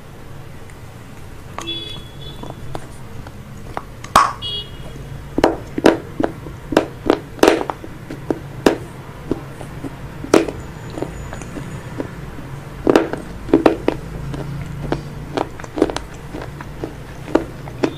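Close-up mouth sounds of a person biting and chewing hard, crunchy food: sharp crunches come irregularly, about one every half to one second, from about four seconds in.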